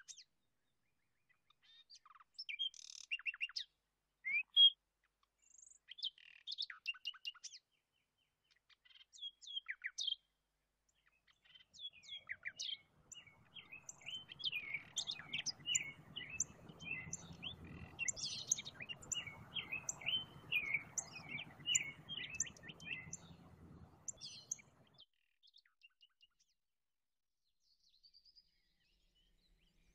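Birds chirping and calling in short scattered bursts of quick high notes. For about ten seconds in the middle the chirping becomes a dense, steady run over a low steady noise, then it dies away near the end.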